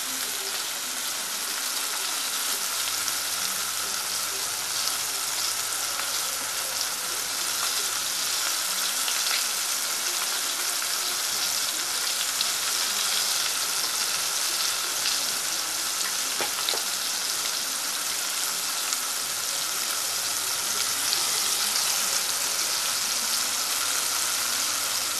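Masala- and rice-flour-coated bombil (Bombay duck) pieces sizzling steadily as they deep-fry in hot oil, with scattered small pops.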